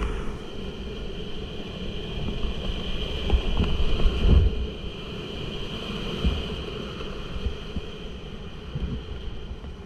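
Whitewater rapid rushing and churning around a kayak, with paddle strokes and splashing. The heaviest thumps and splashes come about three to four and a half seconds in, as the kayak drives through a big foaming wave.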